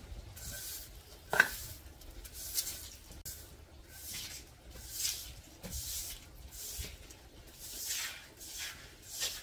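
Push broom swishing water across wet concrete in repeated strokes, about one a second. There is a sharp knock about a second and a half in.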